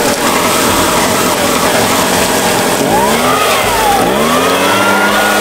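Echo PB-580T two-stroke backpack leaf blower running, with a loud steady rush of air from the nozzle. About three seconds in the engine speed rises, dips a second later, then climbs again and holds.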